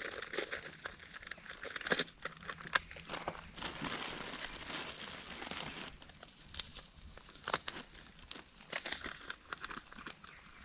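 Onions and whole spices sizzling and crackling in hot oil in a pan over campfire embers, with scattered sharp pops and a stronger stretch of hiss about four seconds in.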